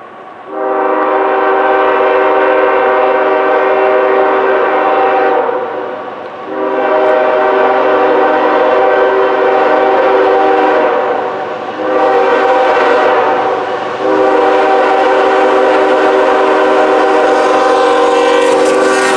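CSX diesel freight locomotive's multi-chime air horn blowing the grade-crossing signal: long, long, short, long, a steady chord of several notes.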